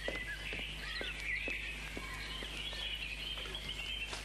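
Birds chirping in short repeated calls over a steady low hum and hiss.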